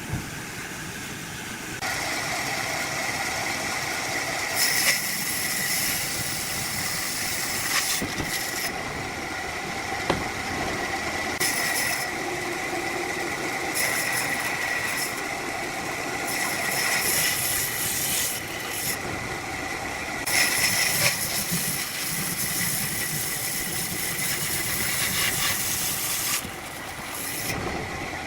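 A motor-driven saw running steadily with a constant whine, breaking into stretches of harsher, hissing noise as it cuts into wood, with a few sharp knocks.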